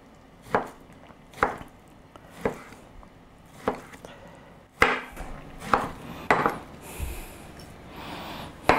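Chef's knife slicing bologna sausage into thin strips on a white plastic cutting board. Each cut ends in a sharp knock of the blade on the board, about once a second, at an uneven pace.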